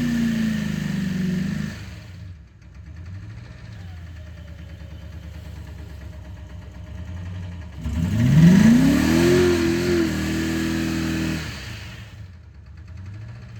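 Ford Explorer 5.0 V8 engine with a rod knock, held at high revs and then dropping to idle about two seconds in. It is revved up hard again about eight seconds in, held for a few seconds, and let back down to idle near the end.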